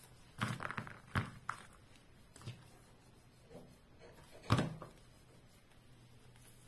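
Handling knocks on a tabletop: a quick cluster of taps near the start, a few single knocks, and one louder thud about four and a half seconds in, as a plastic hot glue gun is picked up and set back down while ornaments are pressed onto a tinsel wreath.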